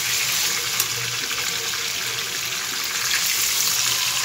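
Whole marinated chicken frying in hot oil in a nonstick pan: a steady sizzling hiss with fine crackle as it is turned, and a brief click about a second in.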